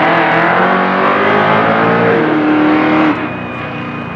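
A drag-racing car's engine at full throttle, rising in pitch as it accelerates down the strip, with an upshift about two seconds in where the pitch drops and then climbs again. The sound drops off suddenly about three seconds in.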